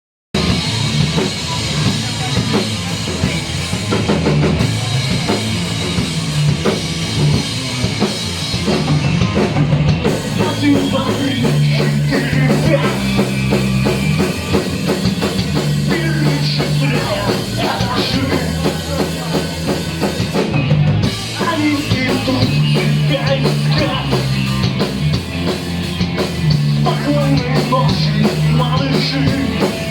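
Rock band playing a song: drum kit and a bass line moving in steps under a full, loud mix, starting abruptly at the very beginning.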